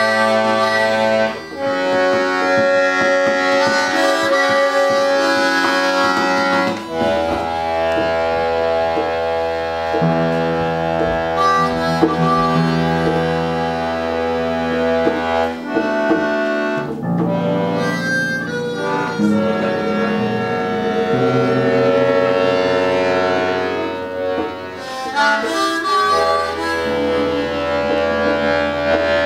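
Accordion and harmonica playing together: a slow tune in long held notes and chords over a steady low note, with brief breaks every several seconds.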